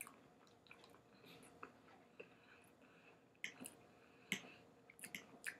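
Quiet eating sounds: a man chewing soft food, with a handful of short clicks spread through the second half.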